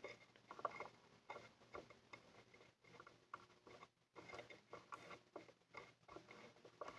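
Near silence with faint, scattered small ticks and taps: a soldering iron and wire being worked against a small DC motor's terminal while the solder joint is made.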